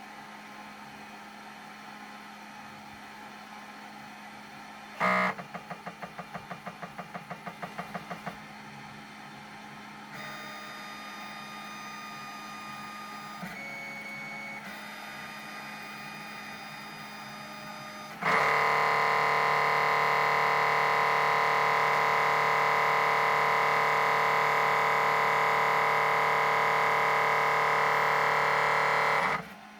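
Snapmaker machine's motors running with a fault-sounding grinding noise. There is first a stuttering run of pulses about four a second, then a steady whine that shifts pitch briefly, then about eleven seconds of a loud, steady grinding buzz that cuts off suddenly. A low steady hum runs underneath.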